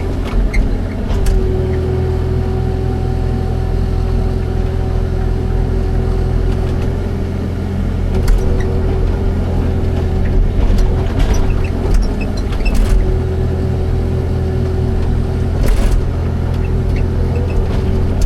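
Excavator's diesel engine running steadily as a continuous low drone with a higher humming tone over it. Scattered sharp clicks and clanks come at intervals.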